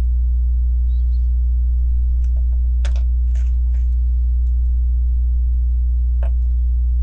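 Steady electrical mains hum, low and constant, with a few faint light clicks of small plastic Lego pieces being handled, a cluster a couple of seconds in and one more near the end.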